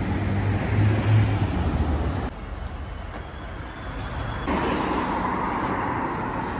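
City street traffic. A motor vehicle's engine hums steadily close by, then after an abrupt cut about two seconds in there is quieter street ambience, and a second cut near the middle brings steady traffic noise back.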